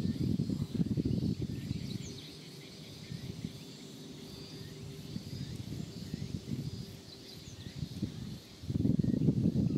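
Summer insects droning steadily in a high band, with faint chirps now and then. Under them runs an uneven low rumble that is strong in the first two seconds, dies down in the middle, and comes back loud near the end.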